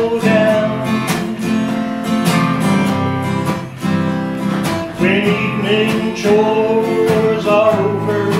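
Acoustic guitar strummed in a steady rhythm, with a man's voice singing long held notes over it about a second in and again from about five seconds in.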